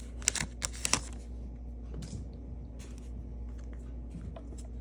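A foil trading card pack wrapper crinkling a few times in the first second, then faint light clicks and rustles of the cards being handled.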